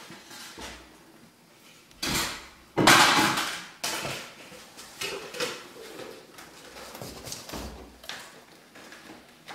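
Handling noise: rustling and light knocks near the microphone, with two loud scratchy rustles about two to four seconds in, then softer knocks and rustles.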